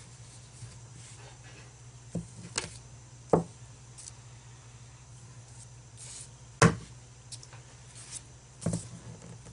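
Sharp clicks and snaps of a hand tool cutting and stripping the insulation off a laptop charger cord, about five short strikes with the loudest about two-thirds of the way through. A steady low hum runs underneath.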